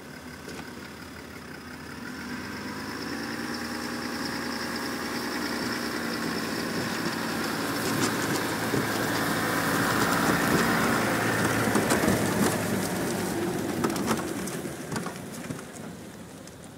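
A Chevrolet Silverado pickup towing a jon boat on a trailer drives past. Its engine and tyres grow louder, are loudest about ten to twelve seconds in, then fade as it moves away.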